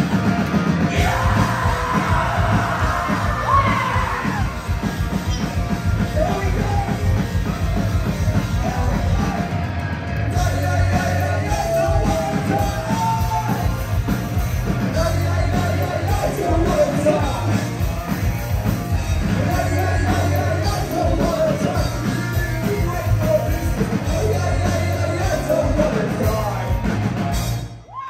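Live rock band playing loud through the venue PA: electric guitars, bass and drums, with the singer shouting the vocals.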